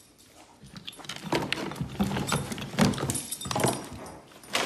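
Plastic skeleton decorations clattering and knocking in a plastic storage bin as a dog roots through it. It starts about a second in, as a quick series of clicks and rattles with a sharp knock near the end.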